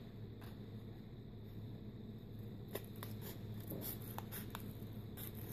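Scissors cutting along the edge of a paper mailer envelope: faint paper snips with a handful of short clicks, most of them in the second half, over a low steady hum.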